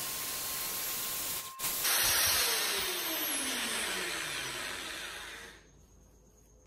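Corded Black+Decker 7-amp electric drill running steadily, spinning a hook that twists the threads of a furled leader. In the later part its pitch falls as it winds down, and it stops about five and a half seconds in.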